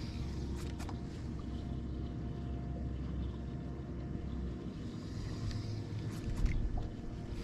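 A boat motor running with a steady low hum over a rumble, with a few light clicks; the rumble grows louder near the end.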